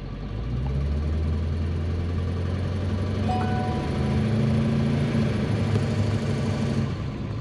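Ford 7.3 Powerstroke turbo-diesel V8 running, heard inside the cab. Its drone rises in pitch as the engine speeds up a little about four seconds in, then drops back near the end. The turbo is building no boost: the intake stays in vacuum.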